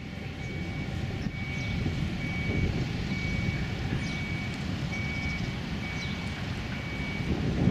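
Vehicle reversing alarm beeping, a single high tone repeating about once a second, over low rumbling background noise. The beeping stops near the end.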